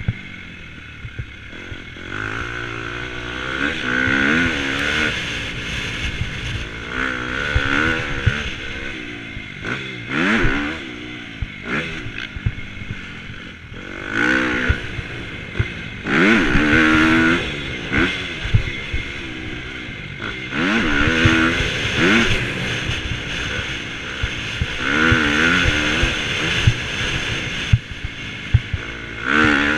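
Dirt bike engine revving up and backing off again and again as it is ridden hard around a motocross track, its pitch climbing in repeated sweeps to loud peaks every few seconds. Short knocks come through now and then. Heard through a helmet-mounted camera.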